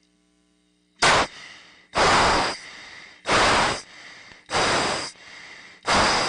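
A pilot's quick, forceful breaths through an oxygen mask during an anti-G straining maneuver under about 6 G, five sharp rushes of breath about one every 1.3 seconds, starting about a second in.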